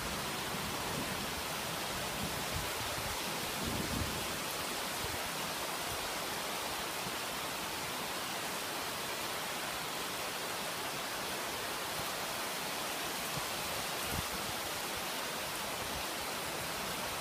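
Steady downpour of rain, an even hiss with a few soft low bumps.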